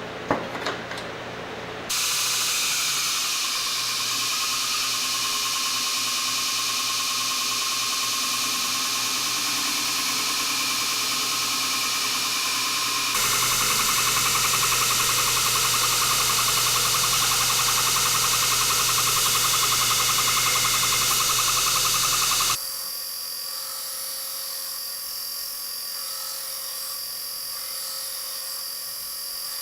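A high-speed power tool running steadily, with a high whine. It changes abruptly in pitch and loudness about 2, 13 and 22 seconds in, and there are a few sharp knocks in the first couple of seconds.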